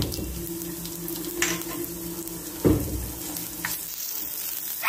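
Cumin seeds, garlic, green chillies and curry leaves sizzling in hot oil in a pan as the tempering is stirred, with two knocks against the pan, one at the start and one just past halfway.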